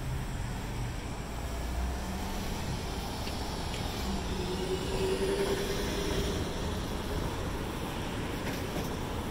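Street traffic: a steady noise of passing vehicles with a low rumble. About four seconds in, one vehicle's engine tone stands out and holds for a couple of seconds.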